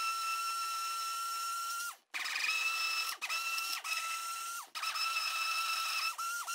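Handheld stick blender motor whining steadily as it blends liquid soap paste toward trace. It is switched off about two seconds in and restarted, then let off briefly a few more times, its pitch dropping each time it slows.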